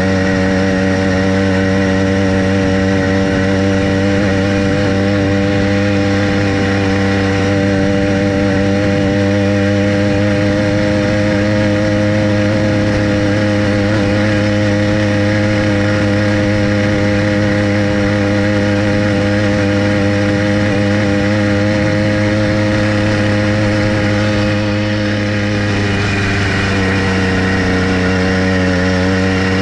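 Small motorized-bicycle engine running steadily under way, its pitch dipping briefly near the end as the throttle eases, then rising again.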